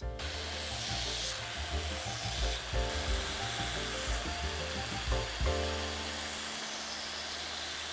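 Milling machine end mill cutting a steel plate, throwing chips, with a steady hissing grind over the hum of the running spindle.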